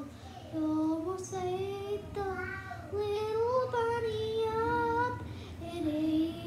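A child singing a melody in long held notes that slide up and down, with a few short breaks between phrases.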